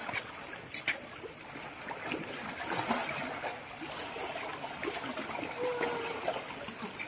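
Pool water splashing and churning as several animals swim fast through it.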